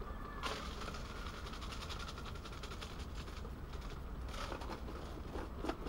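Portable gas stove burner running with a steady hiss under a simmering pan of beans, while a plastic shaker jar of seasoning mix rattles as it is shaken over the pan, most clearly about half a second in and again from about four and a half seconds.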